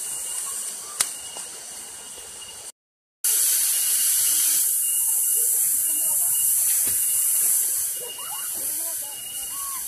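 Steady high hiss of outdoor ambience, cut off by a brief dropout about three seconds in and louder afterwards, with children's voices calling faintly near the end.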